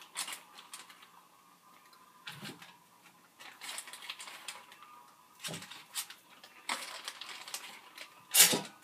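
Plastic zip-top bag crinkling and rustling as marinated chicken wings are pulled out of it and laid in an air fryer basket, with a few soft knocks; the loudest knock comes near the end.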